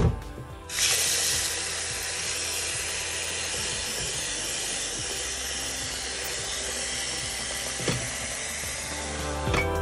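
Water running steadily from a kitchen tap, a hiss that switches on abruptly about a second in.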